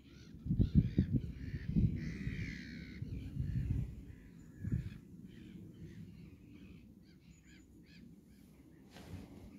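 Birds calling in the background, short repeated calls. Loud low buffeting on the microphone through the first half.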